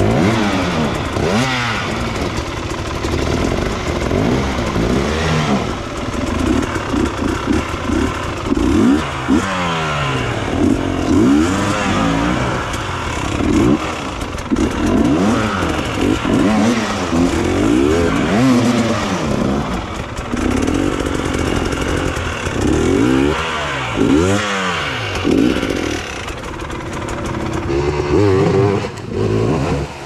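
Enduro dirt bike engines revving up and down over and over, the pitch rising and falling every second or two as the riders blip the throttle to climb a rocky, rooty trail.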